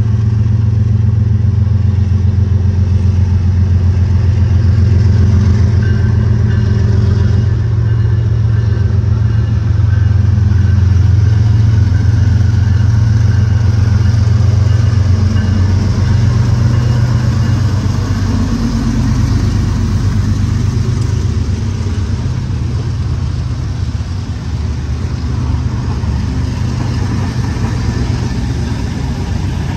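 Several BNSF diesel-electric freight locomotives passing close by under power: a loud, steady, low engine drone that shifts in pitch about two-thirds of the way through as the next units come past.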